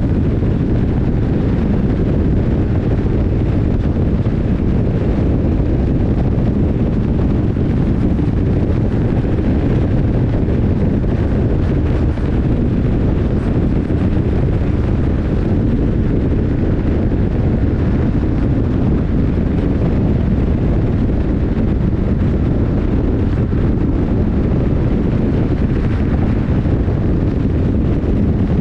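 Wind buffeting a GoPro Hero 10 action camera's microphone on a moving BMW R 1150 R motorcycle: a steady low rush, with the bike's boxer-twin engine running underneath.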